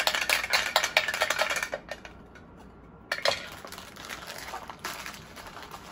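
Metal Funko Soda can being shaken and handled, rattling and clinking rapidly for about two seconds. After a short pause comes a single sharp knock, then lighter clicks and handling noise as the can is opened and the bagged figure taken out.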